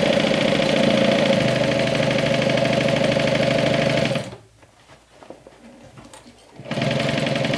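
Juki DU1181N industrial walking-foot sewing machine running steadily, stitching a seam through bag lining fabric. It stops about four seconds in, then starts stitching again near the end.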